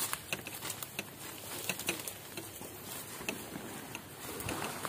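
Footsteps and rustling of people walking through grass and leaf litter, with irregular crackles and light thuds.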